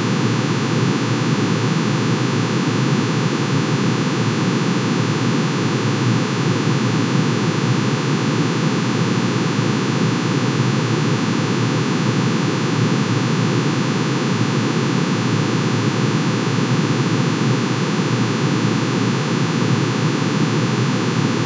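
Synthesized sound of manganese's atomic emission spectrum: sine waves for each spectral line, pitch-shifted into hearing range and summed into one dense, steady drone. The many tones merge into a noise-like hiss and hum with no change.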